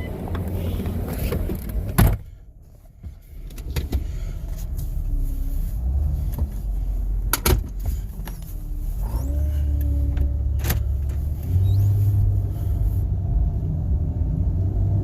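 2006 Ford Escape being driven, heard from inside the cabin: steady low engine and road rumble. A sharp knock about two seconds in is followed by a brief quieter stretch, then the engine pulls again with rising tones.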